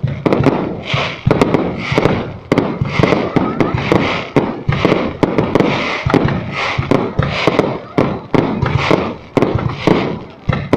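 Fireworks going off in quick succession: loud bangs several times a second, each trailed by crackling.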